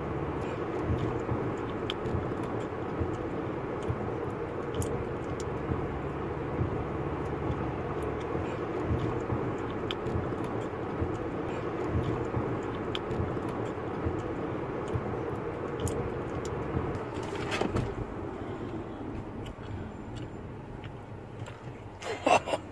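Steady road and engine noise from inside a moving car's cabin at highway speed, easing a little about three-quarters of the way through. A voice starts just before the end.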